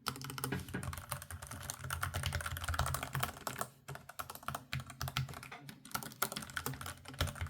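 Rapid random typing on an ASUS ROG Falchion RX Low Profile keyboard with red linear switches: a dense, quiet clatter of keystrokes, pausing briefly twice.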